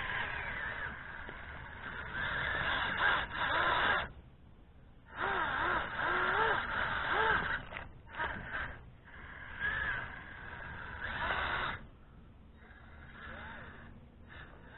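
Stock brushed electric motor and drivetrain of a 1/24-scale ECX Temper RC crawler running in bursts as the throttle is worked, its pitch wavering. It cuts out for about a second around four seconds in and is quieter over the last few seconds.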